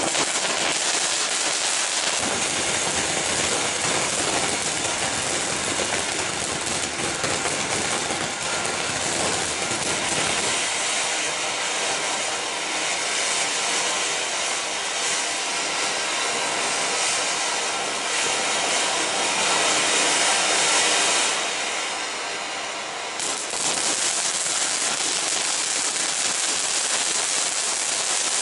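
Ground firework fountains spraying sparks, a loud continuous hiss. It dips briefly about 22 seconds in and then picks up again as the fountain burn goes on.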